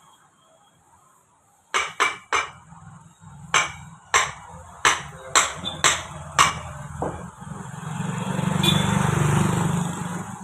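About nine sharp knocks at an uneven pace, a few in quick succession, then a steady rushing noise with a low hum that swells near the end.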